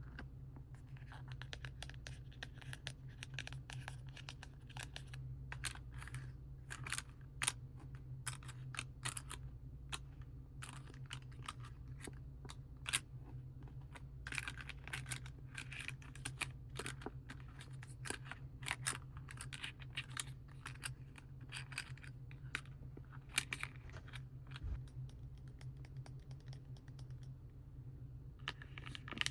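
Scratching and tapping on paint packaging, a dense, irregular run of crisp scratches and clicks, over a steady low electrical hum.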